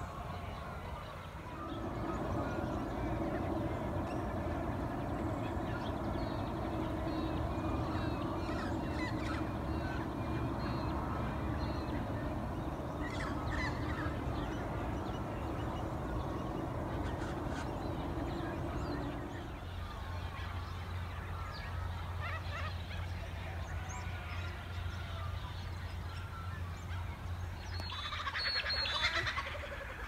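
Many wild birds calling and chirping in a dawn chorus, over a low rumble. A steady low drone sits under the birds for the first two-thirds and then stops. Near the end comes a louder, rapid burst of calls.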